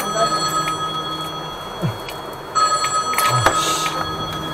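A steady high-pitched ringing tone of several pitches over a low hum; it stops for about half a second around two seconds in and then resumes. A short knock and a brief hiss come about three and a half seconds in.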